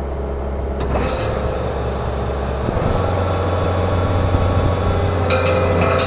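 John Deere 333G compact track loader's diesel engine running, with the hydraulic Reist Rotorake power rake spinning and biting into hard-packed topsoil. The engine note rises about three seconds in and the overall sound gets louder as the rake digs in.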